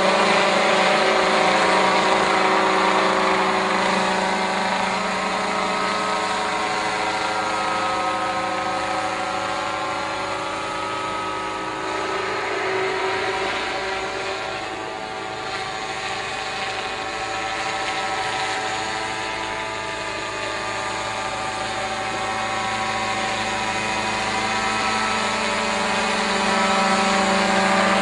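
Small unmanned crop-spraying helicopter's engine and rotor running in flight, a steady drone of many tones. It grows quieter around the middle and louder again near the end as the helicopter moves away and comes back close.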